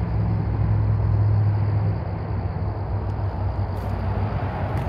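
Steady rush of interstate highway traffic, with a low hum that is strongest in the first two seconds.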